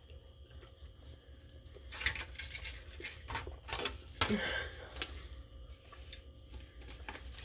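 Quiet chewing of a caramel-filled milk chocolate bunny, with scattered small clicks and taps and a short closed-mouth "mm" about four seconds in.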